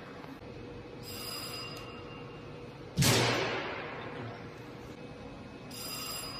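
A single sharp crack of a high-voltage impulse discharge about three seconds in, echoing and dying away over a second or so, one shot in a repeated series of impulse tests on an ESE lightning rod. Faint high steady tones sound briefly between shots.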